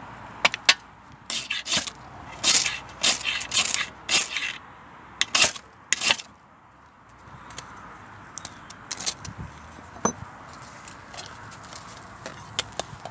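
A knife spine struck hard down a ferro rod over a tray of fatwood shavings, about a dozen sharp scraping strokes in quick clusters over the first six seconds. After that the sparks have caught and the shavings burn with light crackling and a few small pops.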